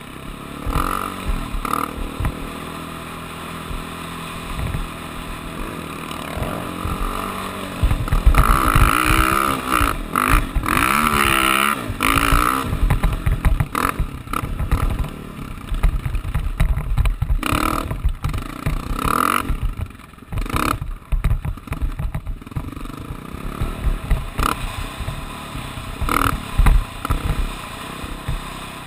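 Off-road vehicle engine heard from the rider's helmet. It runs at a steady note for the first several seconds, then revs up and down loudly for a few seconds. After that it is choppy, with wind buffeting the microphone and knocks from riding over rough sand.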